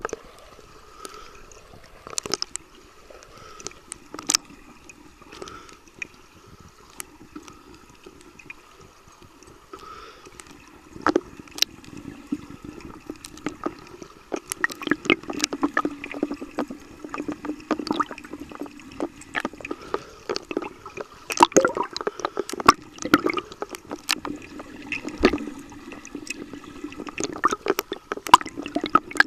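Pool water sloshing, splashing and bubbling around a camera in a waterproof housing at the water's surface, with many sharp clicks and crackles. The splashing grows much busier about eleven seconds in, as a swimmer churns the water close to the camera near the end.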